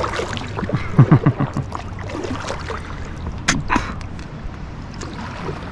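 Water sloshing around a kayak, with a quick run of low knocks about a second in and two sharp clicks a little past the middle.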